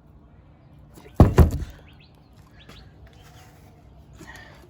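Two heavy knocks about a second in, a quarter of a second apart, with a short ringing tail: a solid object struck or set down on a hard surface.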